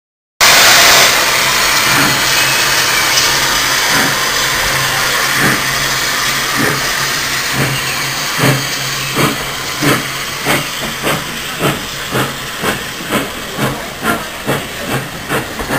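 Furness Railway No 20 steam locomotive starting away with its train: a loud hiss of steam at first, then exhaust chuffs that begin about five seconds in and quicken steadily as it gathers speed.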